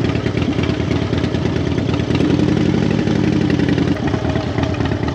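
Harley-Davidson Fat Bob's V-twin engine running with a steady pulsing beat, settling into an even note for a couple of seconds in the middle.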